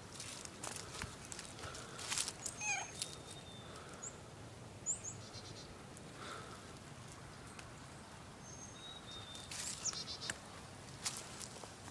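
Footsteps crunching and rustling through dry fallen leaves in scattered bursts, with a few short, high bird calls and chirps, some sliding in pitch, in the background.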